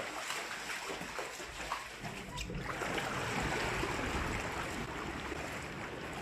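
Rushing floodwater: a steady, noisy rush of water that grows louder about two and a half seconds in.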